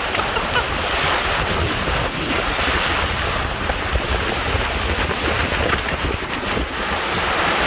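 Heavy rain pouring onto a wide river in a steady hiss, with strong storm wind rumbling across the microphone.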